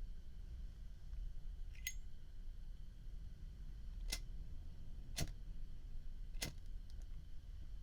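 A 1972 Zippo Slim lighter's hinged chrome lid clicking open and shut: four sharp metallic clicks, the first fainter, the last three about a second apart.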